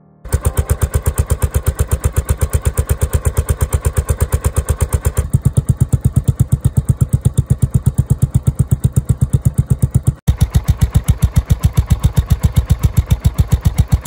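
Triumph motorcycle exhaust idling, heard close at the muffler outlet as an even, rapid pulsing; the tone changes about five seconds in. After a cut about ten seconds in, it idles with a home-made inner silencer fitted, a more muffled, stuffy note.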